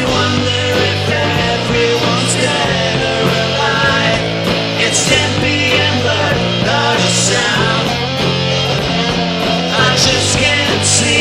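Three-piece rock band playing a song: electric guitar, bass guitar and drums, with sung vocals. Cymbal crashes come every two or three seconds over a steady, changing bass line.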